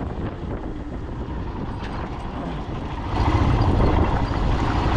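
Royal Enfield Himalayan single-cylinder engine running under way, mixed with wind and road noise on a helmet-mounted microphone. The sound gets louder about three seconds in.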